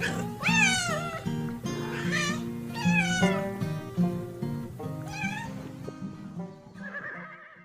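A domestic cat meowing several times in drawn-out, bending calls over background music.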